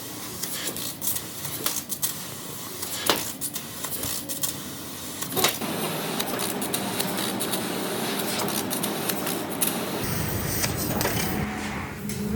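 Metal fabrication workshop sounds: scattered knocks and clicks, then a steady machine noise that starts about five and a half seconds in and changes character near the end.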